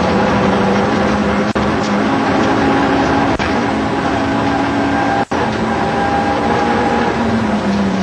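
Ford Escort Mk 2 rally car's engine running hard, heard from inside the cabin with road noise, its note climbing over the first few seconds and falling back near the end. The sound dips for an instant three times.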